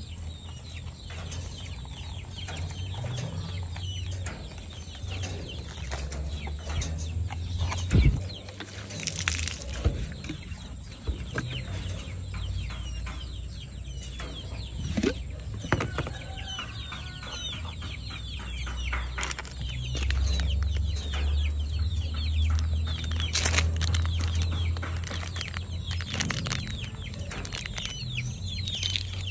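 A flock of KUB kampung chickens calling, many short calls overlapping throughout. A sharp knock about eight seconds in is the loudest moment, and a low rumble swells from about twenty seconds in.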